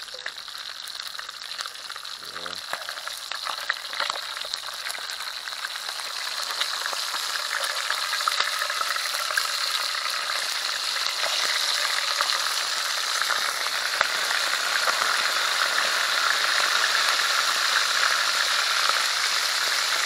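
Pieces of fish frying in hot cooking oil, with a steady sizzle that grows louder from about a third of the way in as the fish are turned. A few faint clicks come in the first few seconds.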